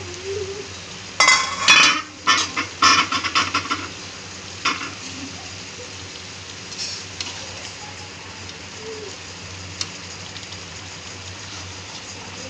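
Aluminium lid clattering against a steel kadhai as it is lifted off and handled, a quick run of metal clanks for about two and a half seconds, then one softer clank. After that the vermicelli (semiya) in its gravy cooks with a faint steady sizzle.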